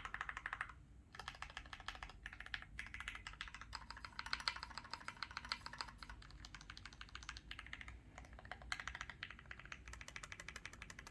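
Fast typing on a D60 60% mechanical keyboard with stock Mekanisk Ultramarine switches, GMK keycaps, an FR4 plate and lubed Durock stabilizers: rapid runs of key clacks broken by a few brief pauses.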